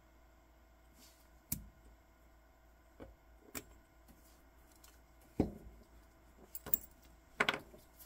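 Scattered small metallic clicks and taps as a spring bar tool works the spring bar of a steel deployant clasp at the strap end, the loudest about five seconds in, with a short cluster near the end.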